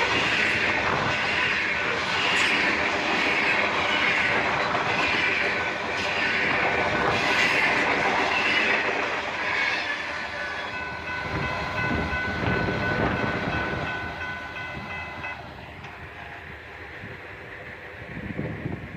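Freight cars of a manifest train rolling past with a steady, rhythmic wheel clatter. A cluster of steady high tones rings for about four seconds in the middle. The sound drops away about three quarters of the way through.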